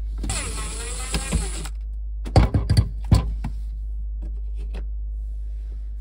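A cordless screwdriver whirs for about a second and a half, backing out the Phillips screw on the refrigerator's water filter head housing. A few sharp clicks and knocks follow, over a steady low hum.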